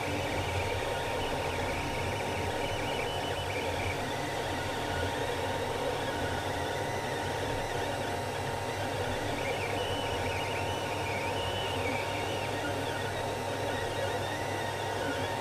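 Creality CR-10 3D printer printing: the stepper motors sing in shifting high tones that rise and fall as the print head moves, over the steady whir of the cooling fans.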